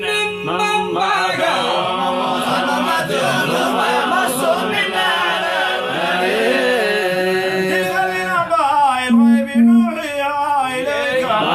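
Several men's voices chanting Quran recitation in Arabic together, long drawn-out melodic lines overlapping one another.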